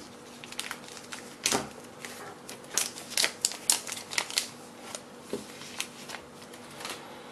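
Clear protective plastic film being handled and peeled off a new smartphone, giving irregular crackling clicks over a faint steady hum.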